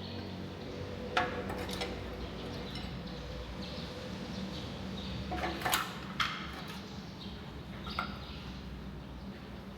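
Scattered sharp metallic clinks and knocks, about five in all with a small cluster near the middle, over a steady low hum.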